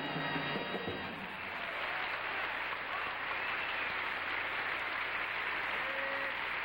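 Audience applauding at the end of a song, with the band's last notes dying away about a second in.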